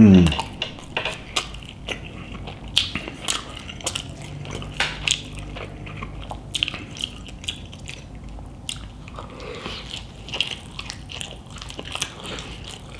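Close-up chewing of a mouthful of chicken burrito, with wet mouth clicks and lip smacks throughout. A short hum that falls in pitch comes right at the start.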